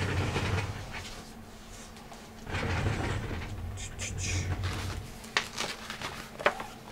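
Rustling handling noise as a spiral-bound paper guide booklet is picked up and opened, with two light clicks or knocks near the end, over a faint steady low hum.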